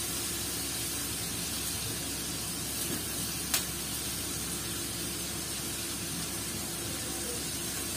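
Diced raw meat sizzling steadily in a hot frying pan as it is seared, with one light click about three and a half seconds in.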